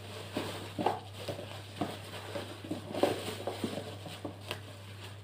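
Paper and packaging being handled: irregular rustles and light taps, with a steady low hum underneath.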